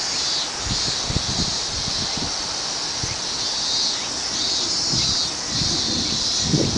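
Gusty typhoon wind buffeting the microphone in irregular low thumps, over a steady high hiss.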